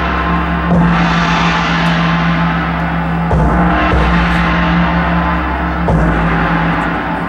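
Marching band and front ensemble playing long held chords. A new chord comes in about every two and a half seconds, three times in all, and each is struck with a gong crash that rings out and fades.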